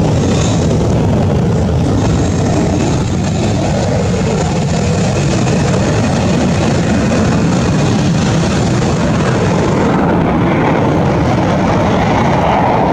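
F-35B's F135 jet engine and shaft-driven lift fan running loud and steady in a vertical hover. About ten seconds in, the highest hiss fades and a mid-pitched rumble grows.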